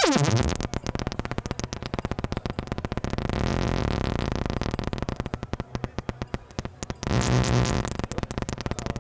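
Noise Engineering Loquelic Iteritas digital oscillator, a Eurorack module whose algorithms combine two pitches, played by hand-turning its knobs. It gives a buzzy electronic tone chopped into very fast pulses, louder for a moment about seven seconds in, and it stops near the end.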